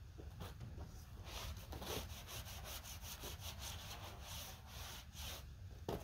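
Faint scraping and rubbing of a cedar slab being handled and slid into place, a quick irregular run of scuffs from about a second in until near the end.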